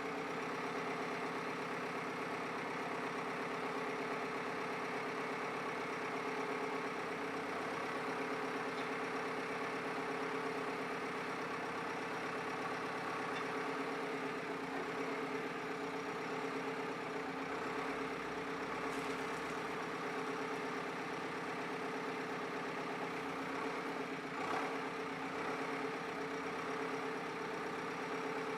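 A JCB 3CX backhoe loader's four-cylinder diesel engine idling steadily.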